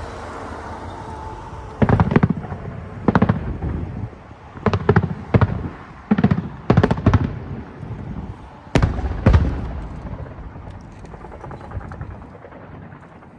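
Aerial fireworks shells bursting in a quick series of loud booms, about a dozen over some eight seconds, each with an echoing tail, then faint crackling as the display fades.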